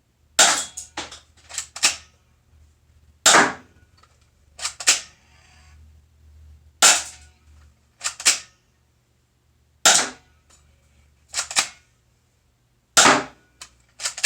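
Spring-loaded airsoft Uzi-style gun fired shot by shot: sharp snaps, often two in quick succession, repeating every one to two seconds.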